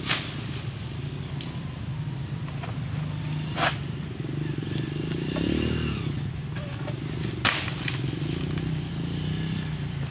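Three sharp cracks, a few seconds apart, as an egrek (pole-mounted palm sickle) bites into oil palm frond stalks during harvesting. Under them a small engine drones steadily, revving up and down once a little past the middle.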